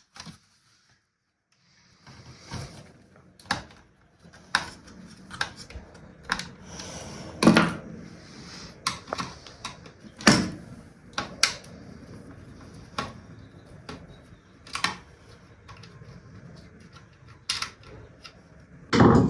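Plastic and metal parts of a disassembled radio-cassette-CD player being handled and worked loose: irregular sharp clicks, taps and knocks, a few of them louder.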